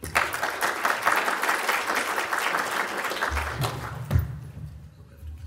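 Audience applauding, starting at once and dying away over the last second or so, with a low thump about four seconds in.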